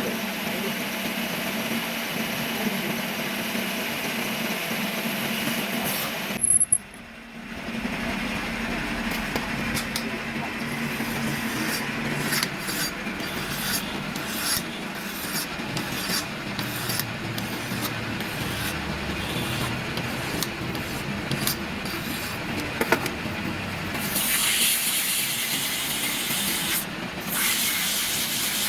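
Lathe running with a steady motor hum while the spinning armature shaft is worked, metal scraping against the turning steel as it is cut down for an oil seal seat. It breaks off briefly about seven seconds in, and the scraping comes in irregular strokes from about ten seconds in, turning to a louder hiss near the end.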